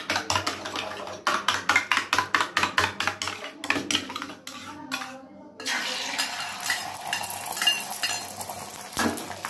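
A spoon beating a raw egg in a small steel bowl, a fast, even clinking, about six or seven strokes a second. After a short pause, about six seconds in, the beaten egg sizzles steadily as it spreads over the hot iron tawa.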